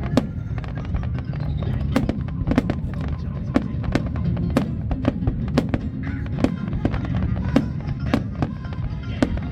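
Fireworks display bursting: a steady string of sharp bangs and cracks, about one or two a second, over music playing throughout.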